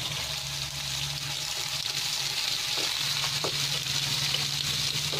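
Sliced onions frying in hot mustard oil in a kadhai, a steady sizzling hiss. A wooden spatula stirring them gives a couple of light knocks against the pan in the second half.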